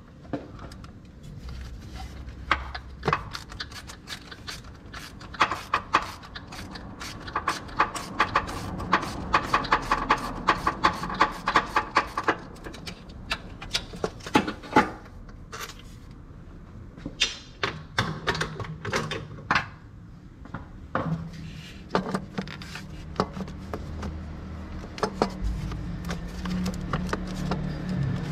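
Hand tools working on metal: scattered clicks and clanks, with a run of rapid, even clicking in the middle. A low steady hum comes in during the later part.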